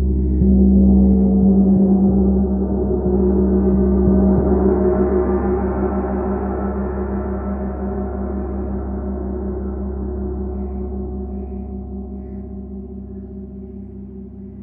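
Large chau gong struck softly with a felt mallet a few times in the first few seconds, building a deep, dense hum in which higher overtones swell up, then ringing on and slowly fading.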